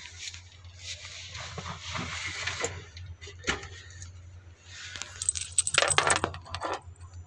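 Rustling handling noise in two long stretches, with scattered sharp clicks, over a low steady hum.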